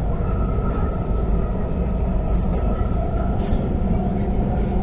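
Interior of an MTR Tuen Ma line IKK-Train running at speed: a steady rumble of wheels on rail, with a steady high whine over it.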